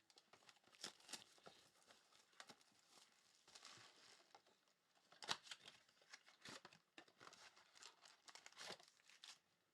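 Faint crinkling and tearing of foil trading-card pack wrappers, with scattered sharp clicks and crackles as the packs are ripped open and the cards handled.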